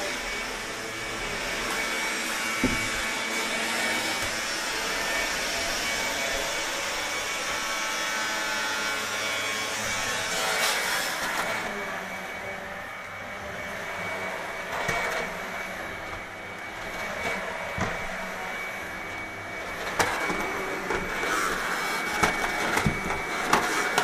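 Vacuum cleaner running steadily: a dense rushing noise with a constant high whine, its hiss shifting about halfway through as the floor nozzle moves. A few short knocks come near the end.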